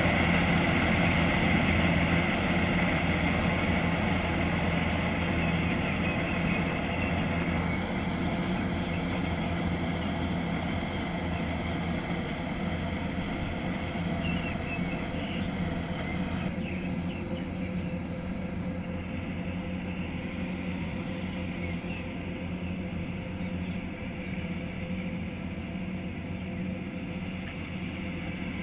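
Kubota DC-105X combine harvester's diesel engine running steadily with a low hum, growing gradually quieter through the stretch.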